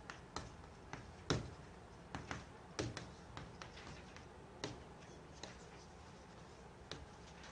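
Chalk tapping against a blackboard as characters are written: faint, irregular sharp clicks, several a second at times, the loudest a little over a second in.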